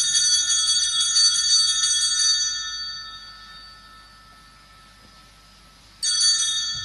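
Altar bells rung at the elevation of the chalice during the consecration of the Mass: a bright ring of several tones that fades away by about three seconds in, then rings again near the end.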